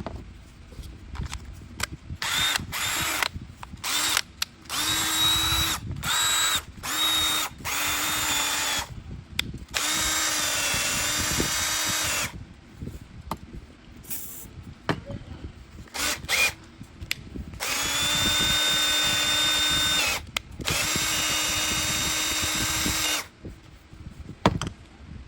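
Makita cordless power tool's electric motor whining in repeated trigger bursts: several short ones of about a second or less, then longer runs of two to three seconds each. The pitch dips briefly partway through one of the longer runs.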